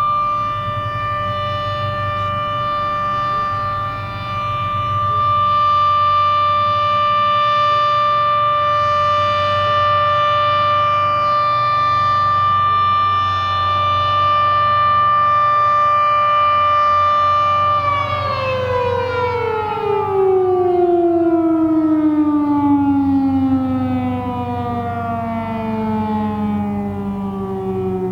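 Federal Signal Model 7B outdoor warning siren holding a steady Alert tone, then about two-thirds of the way in it begins winding down, its pitch falling steadily as the rotor slows at the end of the signal.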